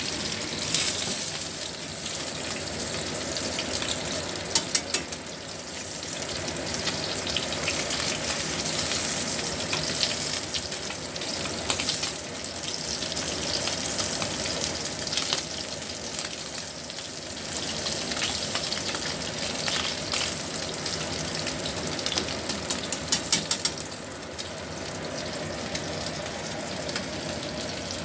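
Fish and tofu frying in hot oil in a pan: a steady sizzle, with a few sharp clicks about four seconds in and a quick run of clicks near the end.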